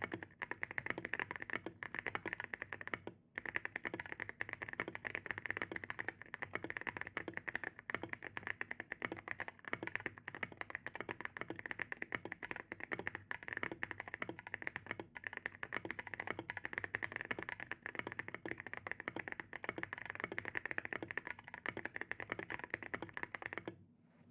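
Typing on a custom mechanical keyboard: lubed and filmed Gazzew Boba U4T tactile switches on a polycarbonate plate in a foam-filled aluminium case, with SA-profile keycaps, giving a rapid run of creamy keystrokes. The typing pauses briefly about three seconds in and stops just before the end.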